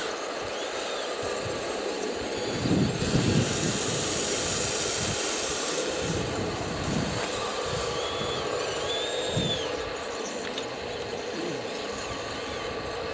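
Scale RC excavator working: a steady motor and pump whine, with short rising-and-falling whines about a second in and again near 9 seconds as the arm and swing move, and a hiss from about 3 to 6 seconds.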